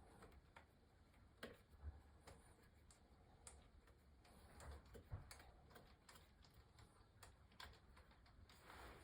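Near silence with faint, irregular clicks and taps, like hand tools working on metal engine parts.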